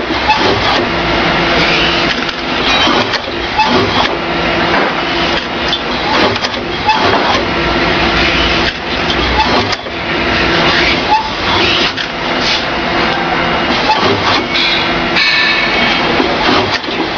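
Electric A3+ business card cutter running, its rollers drawing in printed sheets and its slitter blades cutting them into cards. A motor hum and paper noise come and go in a repeating cycle, with occasional clicks.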